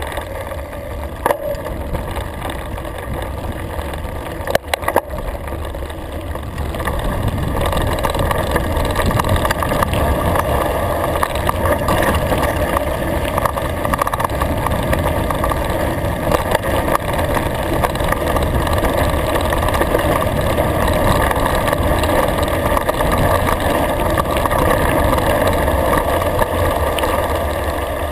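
Wind rushing over a GoPro's microphone and mountain bike tyres rolling on a gravel and grass track during a downhill ride, getting louder about seven seconds in as speed rises. Two sharp knocks of the bike rattling come in the first five seconds.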